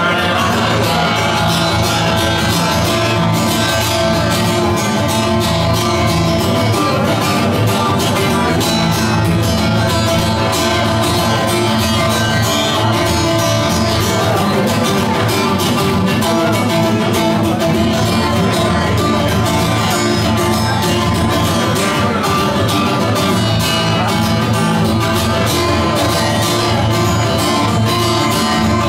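Acoustic guitar strummed in a steady, continuous rhythm of chords.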